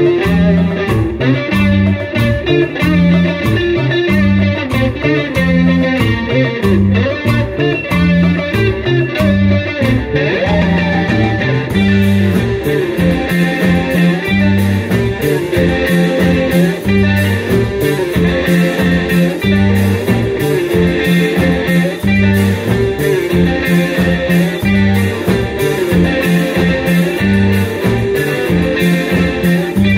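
Live band playing an instrumental number, led by an electric guitar melody over a steady beat of drums and percussion. The high percussion becomes busier about twelve seconds in.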